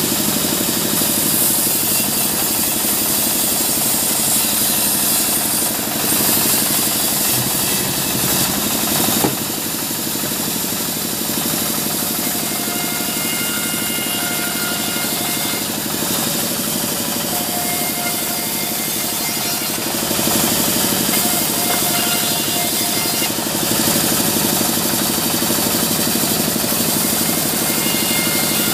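Band sawmill running and cutting waru (sea hibiscus) logs into planks: a loud, steady, dense mechanical noise, with a sharp knock about nine seconds in.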